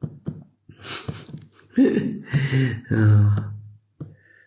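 A man's voice making a few short, indistinct voiced sounds and breaths rather than clear words.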